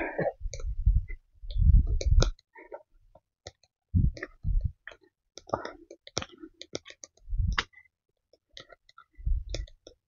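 Footsteps on a forest trail, crunching dry leaves and twigs: scattered crisp clicks and crackles with dull low thumps every second or two.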